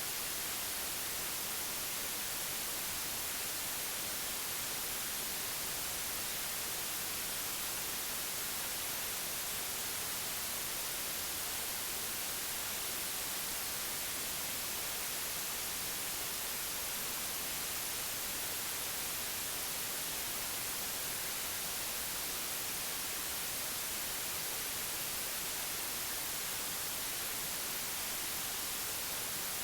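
Steady white noise: an even, unchanging hiss with most of its strength in the high frequencies.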